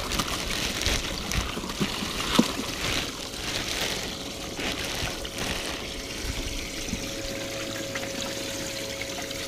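Water trickling and splashing in a fishing boat's live well, where the aerator pump keeps the water churning. A couple of sharp rustles or knocks come in the first few seconds as a plastic bag is handled over the well, and a faint steady hum grows stronger in the second half.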